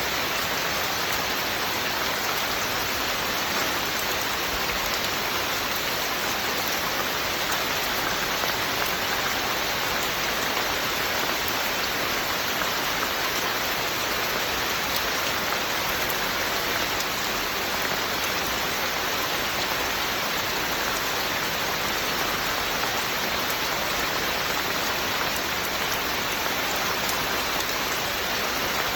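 Steady, even rain falling, with no thunder or separate events.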